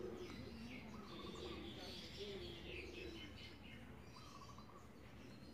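Faint birds chirping in the background, with short repeated trills and scattered high chirps.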